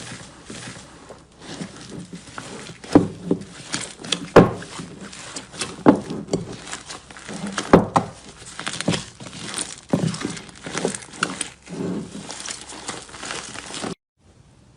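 Slime being squeezed and poked by hand, giving a crackling run of irregular sticky pops and clicks from trapped air. It breaks off abruptly just before the end.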